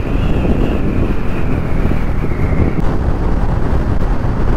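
Heavy wind buffeting the microphone while riding a scooter, mixed with its running and road rumble. A thin, high, steady whine sits above the rumble, drifting slightly lower and fading out about three seconds in.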